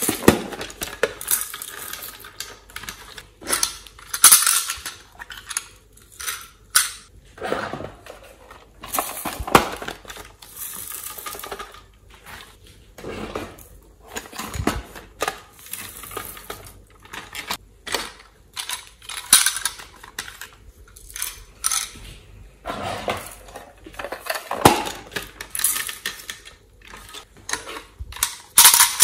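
Hard plastic toy containers handled on a table: irregular clicks, knocks and short scrapes as they are picked up, turned and set down.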